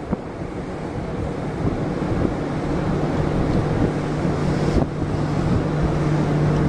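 Wind buffeting the microphone in gusts on an open ship's deck, over a steady low hum that grows stronger from about halfway through.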